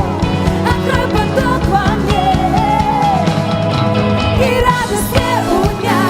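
Live worship band music: a full band with a steady drum beat, and a gliding melody line above it with no words made out.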